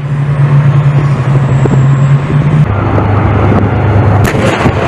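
Military tank engine running with a steady drone, which steps down in pitch about halfway through.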